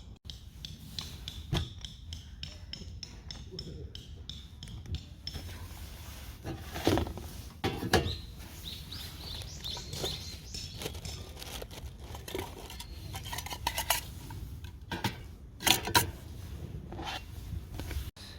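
Camp cookware and metal utensils being handled: scattered clinks, scrapes and knocks. A few louder knocks come around the middle and near the end.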